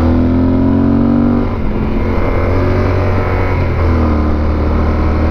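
Motorcycle engine, a Yamaha Super Ténéré's parallel twin, pulling under throttle on a climb, easing off about a second and a half in and pulling steadily again near the end.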